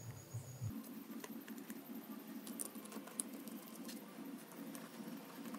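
Faint small clicks and taps of hands fitting small screws to fasten a stepper motor into a 3D-printed plastic motor mount, over a faint low steady hum that comes in just under a second in.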